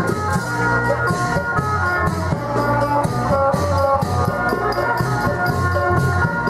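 Upbeat music with a quick, steady drum-and-percussion beat under held melody notes.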